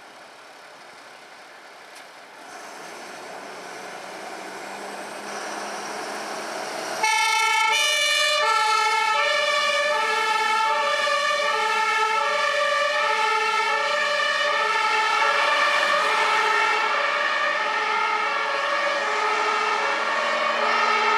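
Dutch fire engine (tankautospuit) pulling out on an emergency call: its engine grows louder as it comes out, then about seven seconds in its two-tone siren switches on, alternating a high and a low note steadily and loudly.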